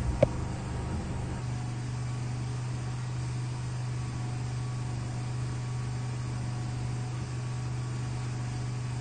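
Steady low background hum, even throughout, with one short click just after the start.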